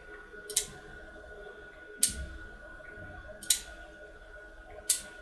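ShI-11 rotary stepping switch clicking as its electromagnet is pulsed: four sharp clicks about a second and a half apart. Each click is the armature pulling in to the core and the driving pawl advancing the ratchet wheel by one tooth, where the stop spring holds it.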